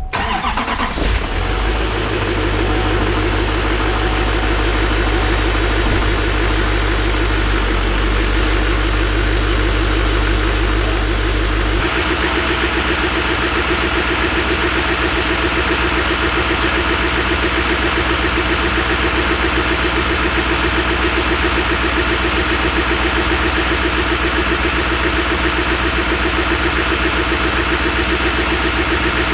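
A vehicle engine catches at the start and then runs steadily at idle. About twelve seconds in, the deep rumble drops and the higher part of the sound grows, then it runs on evenly.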